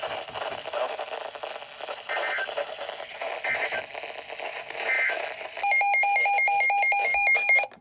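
Weather-radio alert broadcast: noisy, crackly radio audio with three short bursts of data tone, then a loud warbling electronic alarm tone for about two seconds that cuts off abruptly.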